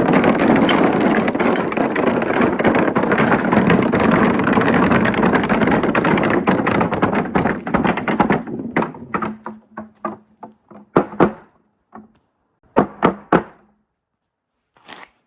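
Many marbles rolling and clattering down a marble run track: a dense clatter for about eight seconds that thins into separate clicks and knocks, then dies away, with a few more knocks near the end.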